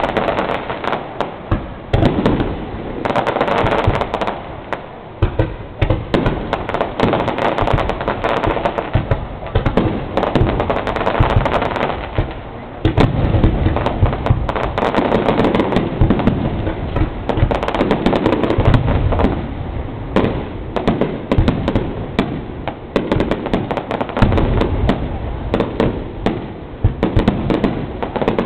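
Fireworks display: aerial shells bursting in a dense, unbroken series of bangs and crackles.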